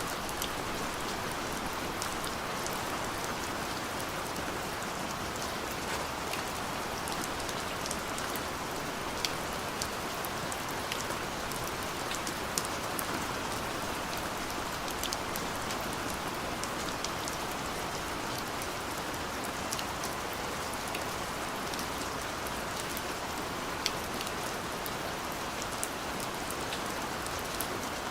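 Steady rain falling, with a constant hiss and scattered sharp drop ticks.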